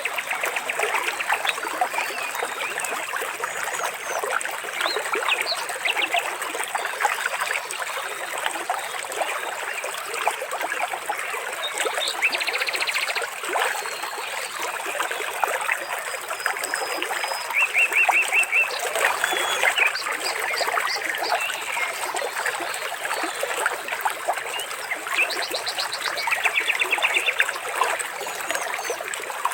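Water trickling steadily, with short, fast trills from birds breaking in three times.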